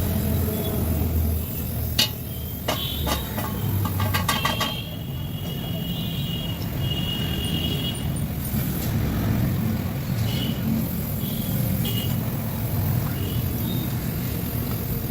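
Steady low rumble of motor-vehicle traffic or an engine, with a sharp click about two seconds in and a quick run of knocks shortly after.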